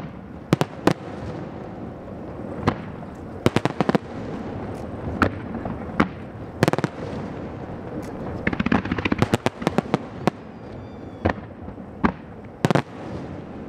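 Aerial fireworks shells bursting: sharp booms and cracks at irregular intervals, with a quick run of bursts about two-thirds of the way through.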